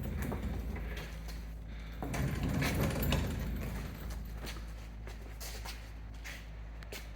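Sioux 645L valve grinder's electric motor running with a steady low hum, with scattered light clicks and knocks. A louder, noisier stretch comes about two to three seconds in.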